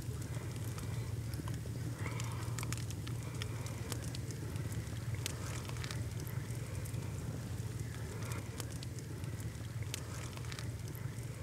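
Wood fire crackling, with irregular sharp pops and snaps, over a steady low hum.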